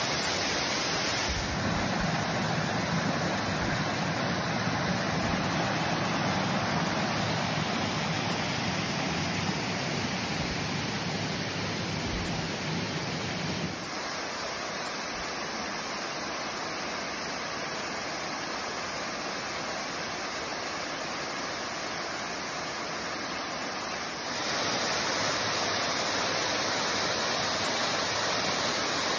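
Waterfall with a steady rush of falling water. Its tone and level shift suddenly a few times: about a second in, about halfway through, and again near the end.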